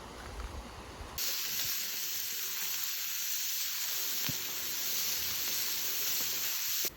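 A low rumble for about a second, then a loud, steady hiss that cuts in suddenly and cuts off suddenly just before the end.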